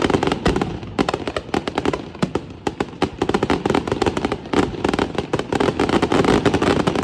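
Fireworks going off: a dense, continuous string of sharp cracks and pops, many to the second, with no let-up.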